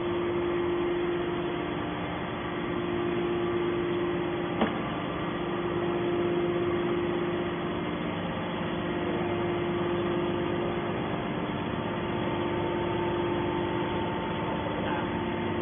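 Hydraulic scrap-metal baler running: a steady machine hum from its motor and pump, with one sharp click about four and a half seconds in.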